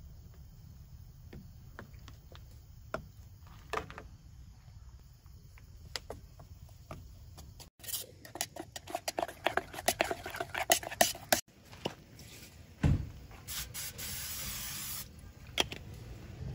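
A spoon stirring batter in a metal camp pot, clicking and scraping rapidly against the sides for about three seconds. Later comes a thump, then about a second of steady hiss from an aerosol cooking spray coating an aluminium pie pan.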